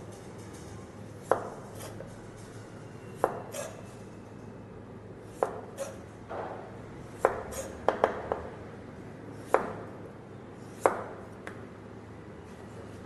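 Knife cutting a vegetable on a plastic cutting board: single sharp strikes of the blade on the board every second or two, with a quick run of three or four strikes just past the middle. A faint steady hum lies underneath.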